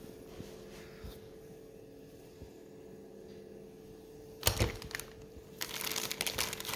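Packaging crinkling and rustling as bagged parts are handled: a sharp rustle about four and a half seconds in, then continuous crinkling near the end, over a faint steady hum.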